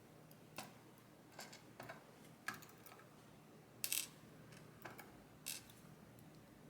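Faint, irregular small metal clicks and taps, about seven or eight, as pins, springs and ball bearings are picked out of a U-Shin Showa NX lock during disassembly and set down.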